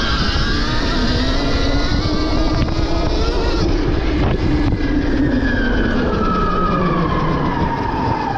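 Stark Varg EX electric dirt bike's motor whining, its pitch rising and falling with speed, over a steady rush of wind and trail noise.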